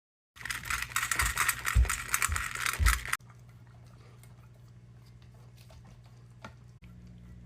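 Dry kibble rattling and clattering in a dog's food bowl for about three seconds, with a few dull knocks, then stopping abruptly. After that only a low steady hum remains, with a few faint clicks.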